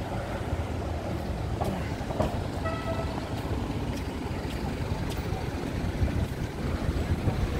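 Street traffic: cars and motor scooters running on the road, a steady low rumble with small scattered clicks, and a brief pitched tone about three seconds in.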